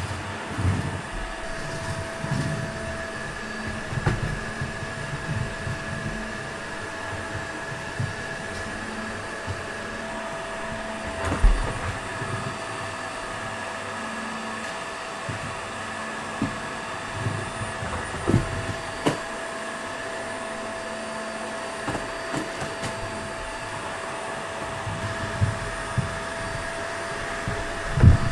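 Toshiba VC-BK750X vacuum cleaner running steadily while cleaning, a constant motor whine with two steady pitches over a rush of air. Irregular low bumps and a few louder thumps, near 11 s, 18 s and just before the end, come through as the cleaner is worked around.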